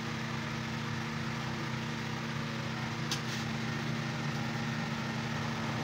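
14-inch industrial extractor fan running steadily: a low motor hum over an even rush of air.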